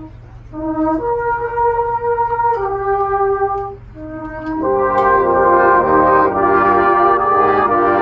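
Brass band playing: a single brass melody line with two short breaks, then the full band comes in a little past halfway, louder and fuller.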